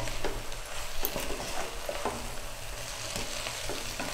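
Noodles and vegetables being stirred and tossed with a cooking utensil in a pot on the stove. There are scattered short scrapes and clicks of the utensil against the pot, over a light sizzle and a low steady hum.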